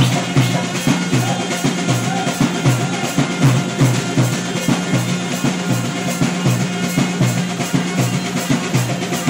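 Kodava valaga wedding music: drums beating a steady, quick dance rhythm over a held low tone, with a tune wavering above it.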